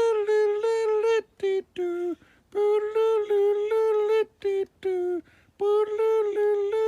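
A voice humming or singing a short wordless tune in high held notes that slide down at their ends. The same phrase repeats about every three seconds.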